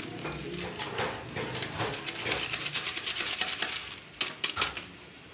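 A spoon stirring and scraping in a pot of meat and potatoes frying in ghee, with a sizzling hiss beneath; a few sharper knocks near the end, then the scraping grows quieter.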